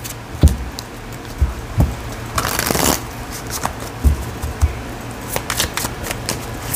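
A deck of oracle cards being shuffled by hand: scattered soft clicks and taps of the cards, with a brief rush of riffling cards about two and a half seconds in.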